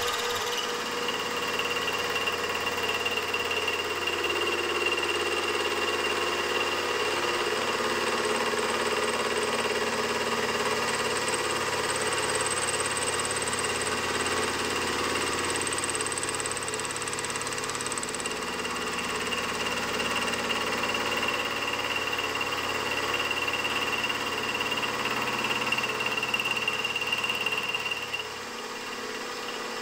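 Small milling machine running with its end mill cutting metal as the conrod's small end is milled round on a rotary table: a steady machine drone with a high motor whine that fades and returns. The level dips briefly near the end.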